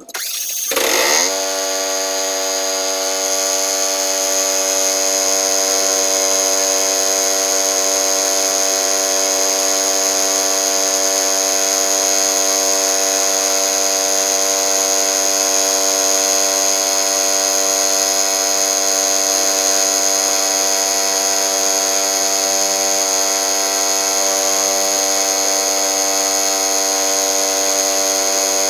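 A motor starts up about a second in and then runs steadily at a constant speed, with a high buzzing whine.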